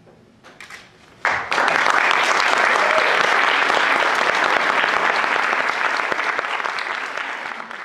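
Audience applause: a few scattered claps, then loud applause breaks out about a second in and carries on steadily, easing slightly near the end.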